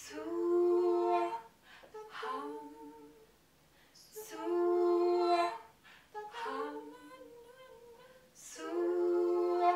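Layered women's voices singing sustained wordless tones a capella, in three long swells of about a second and a half, each opening with a short hiss, with softer hummed tones between them.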